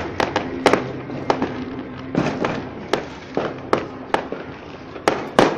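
Fireworks bursting: sharp bangs in quick, irregular succession, about every half second, with the loudest two close together near the end.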